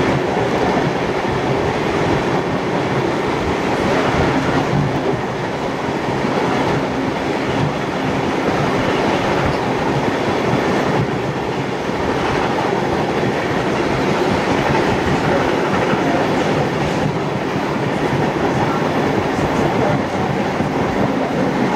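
Steady running noise of a heritage passenger train heard from an open carriage window, its wheels rolling on the rails.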